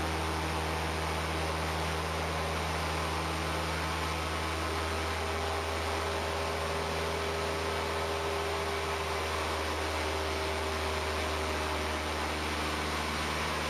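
Cessna 172P's four-cylinder Lycoming engine and propeller droning steadily in flight, with a constant rush of air noise over it.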